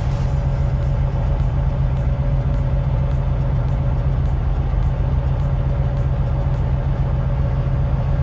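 A heavy machine's engine running steadily, a loud continuous rumble with a steady hum above it.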